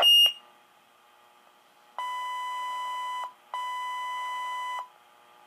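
Motorola Minitor V fire pager sounding tones: a short, loud high beep, then about two seconds later two long steady tones of a little over a second each with a brief gap between them. These are the alert tones that come before the next dispatch.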